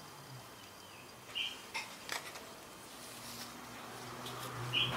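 Quiet handling sounds: a few light clicks and rustles as a sheet of paper is moved and laid down, with a short bird chirp twice in the background and a faint low hum.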